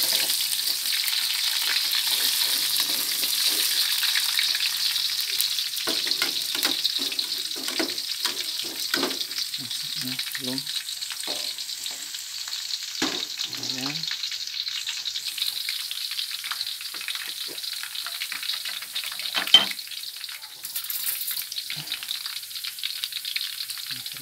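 Sliced shallots sizzling in hot oil in a pan, with a spatula scraping and clinking against the pan for several seconds in the middle. The sizzle is strongest at first and eases, and there is one sharp knock near the end.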